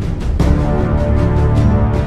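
Background music with a steady beat over held low notes, with a stronger accent about half a second in.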